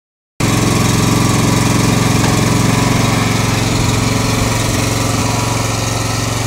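Engine running steadily under load to drive a truck-mounted hydraulic knuckle-boom grapple crane as it lifts a log, with a rough, fast pulsing.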